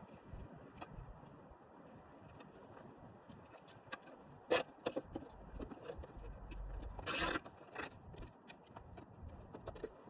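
Scattered light clicks and clinks of parts being handled, with a short scrape or rustle about seven seconds in.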